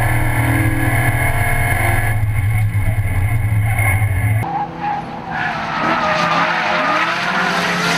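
Supercharged BMW E92 M3's V8 heard inside the cabin during a drift, held at high revs in a steady drone. About halfway through it cuts to the car heard from outside: engine revving and tyres squealing as it slides.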